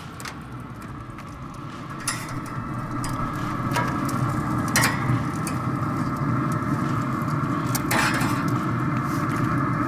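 Metal spatula and tongs clinking and scraping on a pellet grill's grates as smoked burgers and bacon are lifted off: a few sharp clicks over a steady rushing noise that slowly grows louder.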